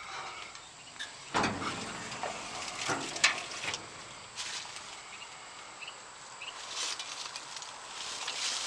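Sheet-metal engine compartment cover of a JLG boom lift being opened by hand: a heavy clunk a little over a second in, then several sharp metal clicks and knocks, followed by lighter rustling and handling noise. The diesel engine is not running.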